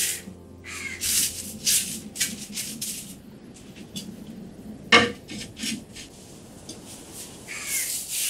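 Dry contents rustling and clattering in a terracotta clay pot as they are taken out by hand into a woven basket, in short irregular bursts. A single sharp knock about five seconds in, as the clay lid is set back on the pot.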